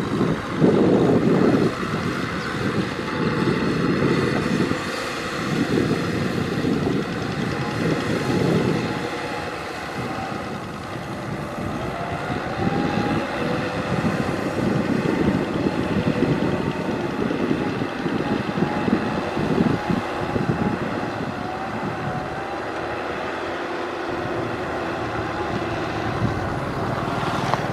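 Kubota M6040SU tractor's diesel engine running steadily under load while it pulls a cultivator through wet mud.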